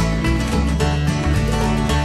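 Instrumental passage of a country song, led by guitar with a steady beat.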